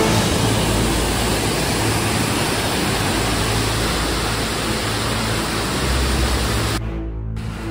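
Steady rushing of a whitewater cascade pouring down over boulders in a mountain creek. It cuts off sharply near the end.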